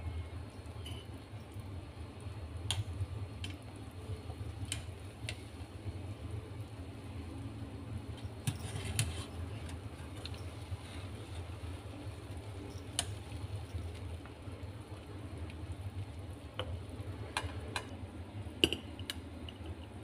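Water boiling steadily in an electric cooker pot as a low, even rumble, with scattered sharp clinks of a metal wire skimmer against the pot and a ceramic plate while the boiled prawn fish-cake rolls are scooped out. The loudest clink comes near the end.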